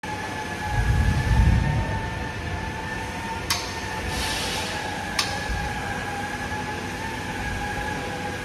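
Heavy steel-framed door panels being handled and moved: a low rumble about a second in, then two sharp metallic clicks a second and a half apart.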